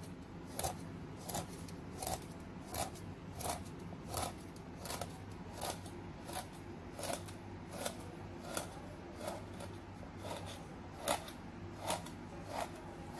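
Knife scoring across a raw tararira fillet, a short crisp crunch about every 0.7 seconds as each cut snaps the fine bones in the back and meets the plastic cutting board.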